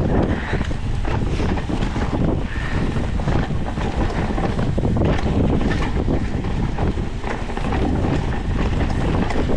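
Wind buffeting the microphone of a camera on a mountain bike descending a dirt trail, over the steady rumble of the tyres on the dirt and the bike rattling and knocking over bumps.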